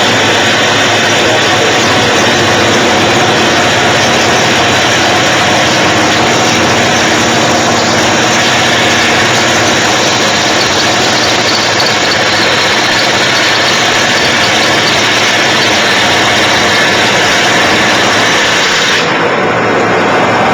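Gray CNC horizontal floor-type boring machine running: a loud, steady mechanical din with a steady whine in it.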